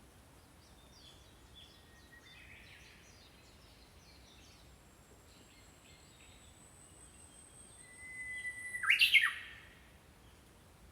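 Small birds chirping faintly off and on. Near the end one bird gives a much louder call, a short held note breaking into a few quick falling notes.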